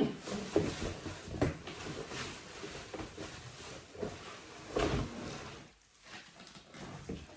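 Cardboard box and packaging being handled as a boxed air fryer is worked out: irregular rustling and scraping with knocks, the loudest about five seconds in, quieter near the end.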